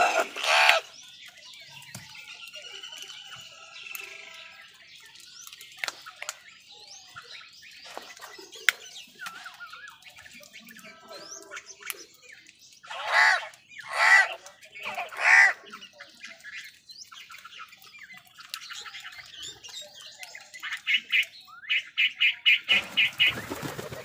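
House crows calling while feeding: three loud harsh caws in quick succession about midway, softer scattered calls and clicks around them, and a rapid series of short calls near the end.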